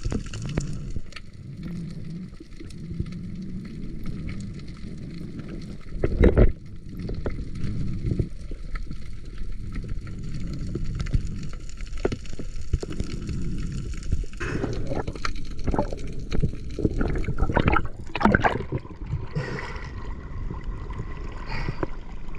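Water gurgling and sloshing around a spearfisher swimming at the surface, with a loud knock about six seconds in and a run of splashes and knocks later on.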